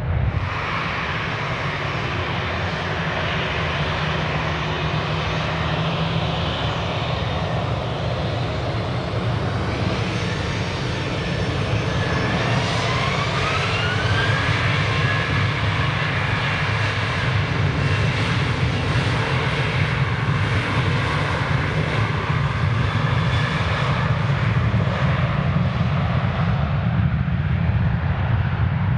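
Jet airliner's turbofan engines spooling up to takeoff thrust: a loud, steady rumble, with a whine that rises in pitch about twelve seconds in, after which the engines run slightly louder.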